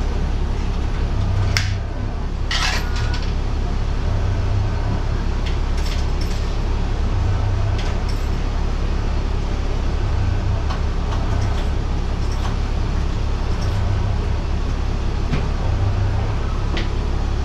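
Diesel railcar running along the line, heard from inside: a steady low engine and running rumble with occasional sharp clicks and knocks from the car and wheels.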